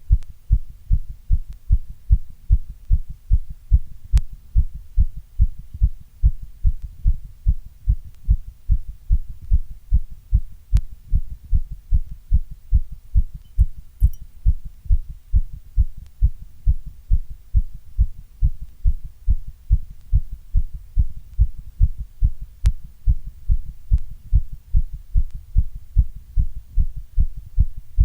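Strong, steady heartbeat: a regular run of deep, paired lub-dub thumps that keeps an even pace throughout.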